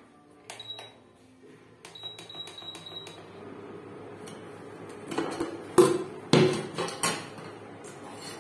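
Induction cooktop's control panel beeping as its buttons are pressed: a short beep, then a longer one about two seconds in. Then a metal pot lid clanks several times as it is lifted off a pot at a rolling boil and set down, over the steady bubbling of the boiling water.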